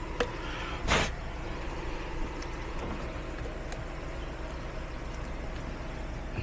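Steady low hum of an idling vehicle engine, with one short, sharp noise about a second in.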